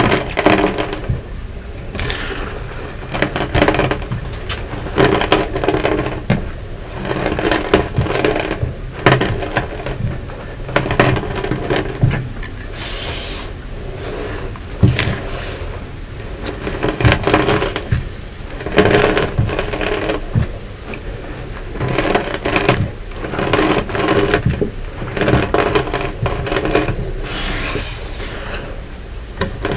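Metal rolling pin rolled back and forth over crushed Nexo powder and lumps, crunching and grinding them on a hard board. The strokes come about every one to two seconds, with sharp little cracks of lumps breaking.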